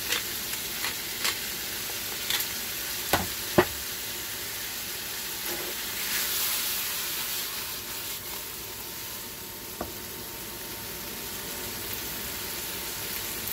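Cubes of ground beef sizzling steadily in butter and their own fat in a nonstick skillet, the sizzle swelling briefly about six seconds in. A hand pepper grinder clicks a few times over the first few seconds, two clicks sharper about three seconds in.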